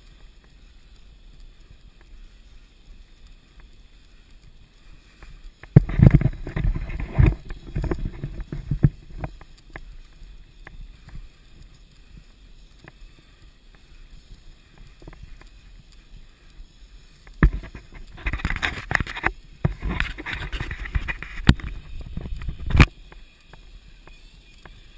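Mountain bike rolling along a dirt forest singletrack, heard from a camera riding on the bike or rider. There are two spells of loud rattling and knocking as it bounces over rough ground, about six to nine seconds in and again from about seventeen to twenty-three seconds, with a low quiet rumble between them.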